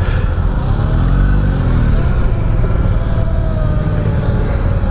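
Harley-Davidson LiveWire One electric motorcycle pulling away and maneuvering, its electric drive whine rising and falling in pitch with the throttle over a heavy low rumble.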